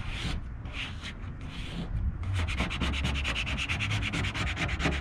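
Plastic card squeegeeing a vinyl decal onto a vehicle's body, scraping back and forth over it: a few slower strokes, then rapid strokes, about ten a second, from a little past the middle.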